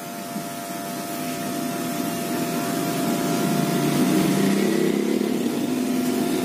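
Electric hair clipper running with a steady buzzing hum, getting louder over the first few seconds as it is worked along the side of the head.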